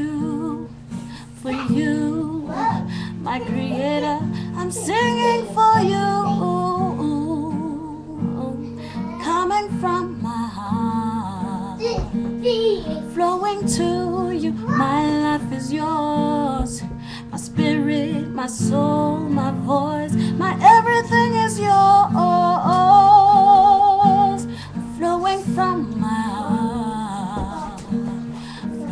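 A woman singing a devotional song, accompanying herself on acoustic guitar, with long held notes that waver in a vibrato.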